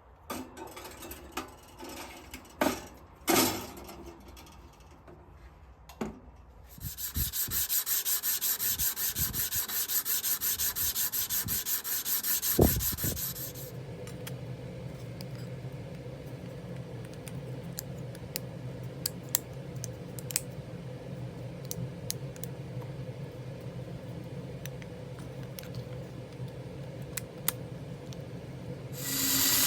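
A few scattered knocks and clicks, then about six seconds of rapid, even back-and-forth abrasive rubbing strokes on metal. After that comes a steady low hum with occasional light ticks.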